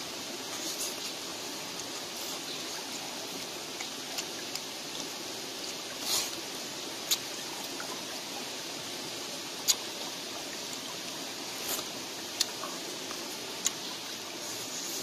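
Shallow stream flowing steadily, with a scattering of short sharp clicks over it.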